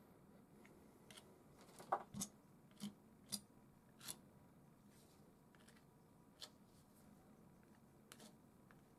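Metal palette knife working oil paint on canvas: a series of short scrapes and light taps. Most come between about one and four seconds in, the loudest near two seconds in, with a couple more near the end.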